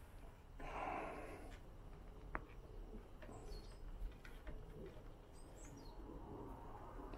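Faint rustle and rub of a cord being untied from a bicycle's top tube, with one sharp click about two and a half seconds in. Small birds chirp faintly in the background.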